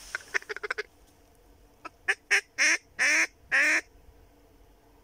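Duck call blown to imitate a mallard hen's quacking: a fast run of short quacks, then after a pause a series of longer, louder quacks.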